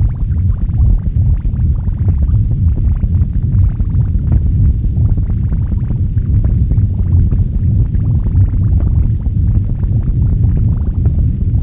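Experimental noise recording of guitar, metals, tapes and electronics: a dense, steady low rumble with fine crackling flickering above it.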